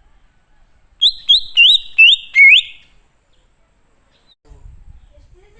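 Wild cucak ijo (green leafbird) singing: about a second in, a quick loud phrase of about six upward-sweeping notes lasting under two seconds.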